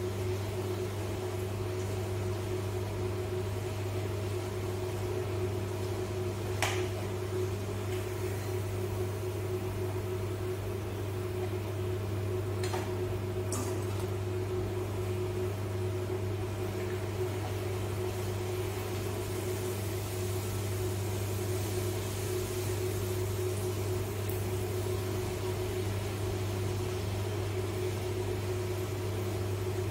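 A steady low machine hum, like a fan or motor, runs under faint sizzling of puris deep-frying in hot oil. A slotted metal spoon makes a few light clicks against the kadai.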